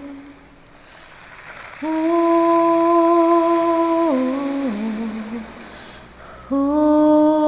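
A wordless voice humming a slow melody in long held notes. The first phrase starts about two seconds in and steps down in pitch before fading, and the second comes in near the end.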